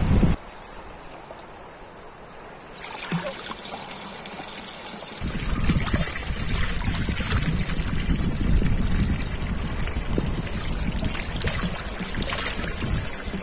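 Water trickling. It gets louder in two steps over the first five seconds, with a low rumble joining the second time.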